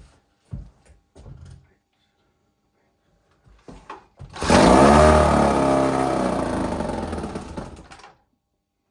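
1960 Johnson JW16 3 hp two-stroke outboard motor being started after an ignition rebuild: a few knocks, then about four and a half seconds in it fires and runs for roughly three and a half seconds, its speed falling away steadily until it dies.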